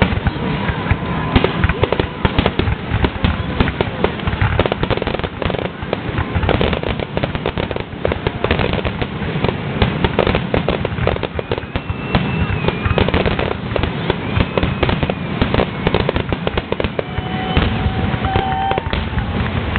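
Aerial fireworks exploding in a rapid, near-continuous barrage of bangs and crackling. A few short whistling tones cut through near the middle and near the end.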